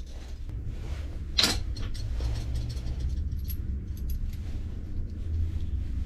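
Small brass pipe fitting being rubbed and turned by hand against a strip of abrasive cloth, cleaning it before brazing. It gives irregular scrapes and light clicks, with one sharp louder scrape about a second and a half in, over a steady low hum.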